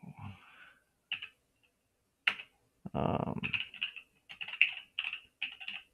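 Typing on a computer keyboard: two single key presses, then a quick run of keystrokes from about three seconds in as a command is typed.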